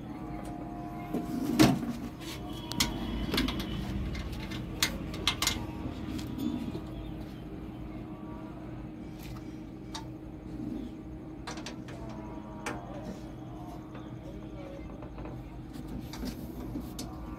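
Spanner and nuts clinking and knocking on the steel frame of an agarbatti making machine as its bolts are tightened: a scattered series of sharp clicks, the loudest about a second and a half in. A steady low hum runs underneath.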